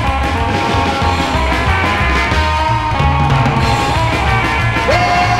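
Psychobilly rock band recording, instrumental at this point, with a steady driving beat.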